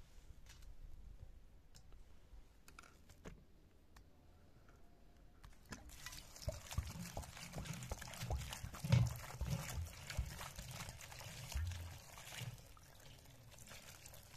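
Water poured from a jug onto diced lamb meat in a stainless-steel colander, splashing and draining through it while a hand turns the pieces to rinse them. It starts about six seconds in, after a few light clicks.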